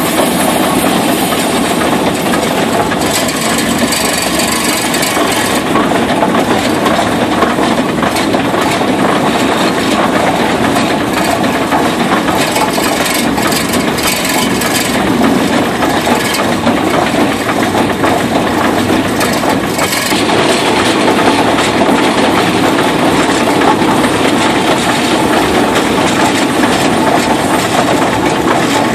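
Rumely steam traction engine running underway, heard from its operator's platform: a loud, steady mechanical noise of the engine and its moving parts.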